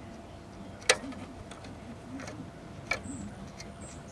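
Sharp clicks and ticks of wiring and parts being handled on a tube TV chassis: a loud click about a second in, another near three seconds, and a few fainter ticks between.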